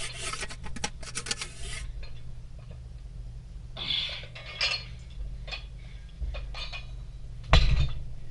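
Iron weight plates on plate-loaded dumbbells clinking and rattling against their handles as the dumbbells are lifted, with a heavier thud near the end as they are set down.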